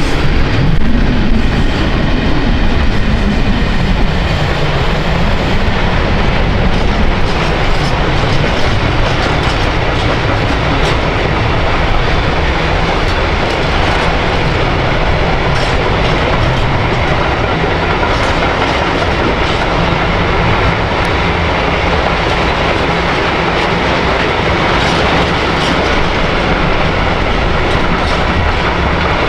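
Train running past, wheels clicking over the rail joints in a steady, continuous rumble.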